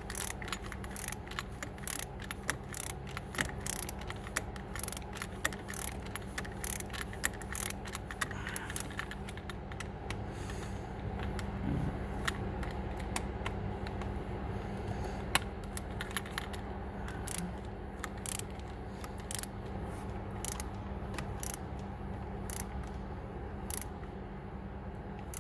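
Irregular sharp metallic clicks and clinks of hand tools and parts being handled while working on a car, frequent in the first half and sparser later, over a steady low hum.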